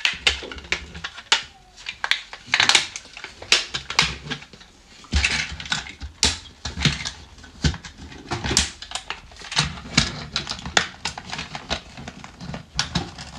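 Hard plastic parts of a transforming robot toy clicking, snapping and rattling in irregular quick succession as the pieces are folded and locked together into a truck.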